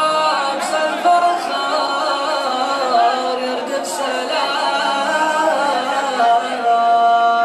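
Chorus of men chanting a sung poetry refrain together without instruments, their voices sliding between notes and ending on a long held note.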